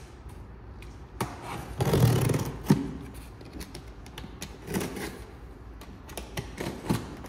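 Snap-off utility knife cutting the packing tape along the seam of a cardboard box, with scraping, taps and rustling of the cardboard. The loudest scrape comes about two seconds in, followed by a sharp click.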